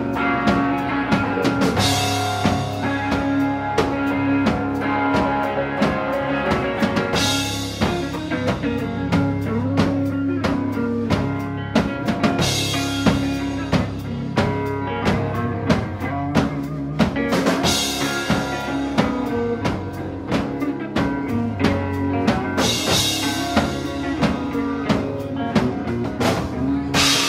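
Live rock band playing: a drum kit keeping a steady beat with a cymbal crash about every five seconds, over electric guitar and bass guitar.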